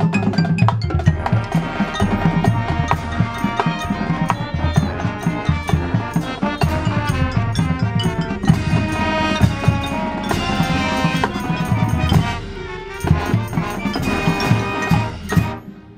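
High school marching band playing, with brass tones over drums and percussion; the music breaks off just before the end.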